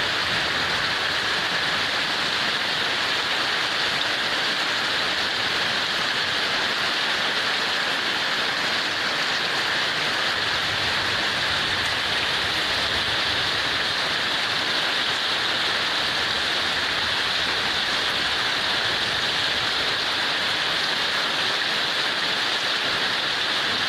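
Heavy rain falling steadily, an even hiss with no breaks or changes.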